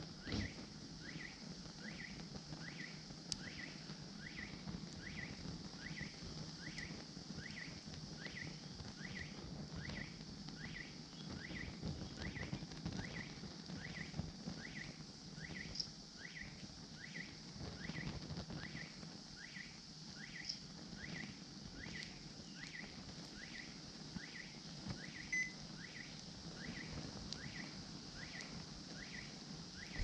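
Microwave oven on fire: a steady low flame noise with a few sharp pops, over a faint short chirp that repeats about once every 0.7 seconds.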